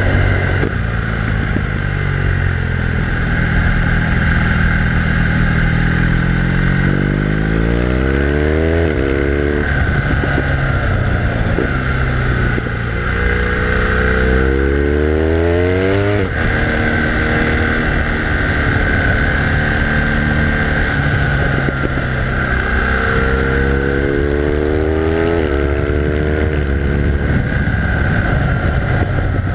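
BMW R1200R LC's boxer-twin engine under way, heard from the rider's seat. The revs climb three times as the bike accelerates and drop back sharply with throttle and gear changes, over a steady rushing noise.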